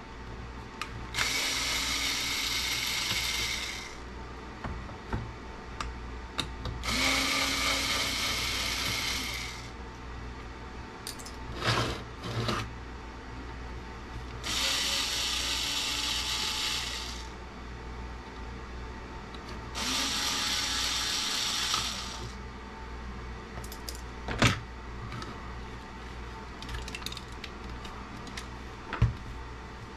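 Small cordless electric screwdriver running four times, two to three seconds each, backing screws out of a CB radio's metal case. A few sharp knocks fall between the runs.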